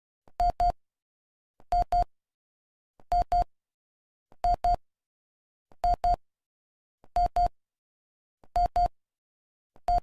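Emergency Alert System alarm tone: pairs of short, identical electronic beeps repeating evenly about every 1.3 seconds, with silence between pairs.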